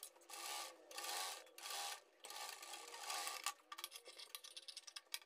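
Cloth rustling in a series of soft swishes as fabric is handled and turned, then a quick run of small clicks from scissors snipping into the curved neck seam allowance.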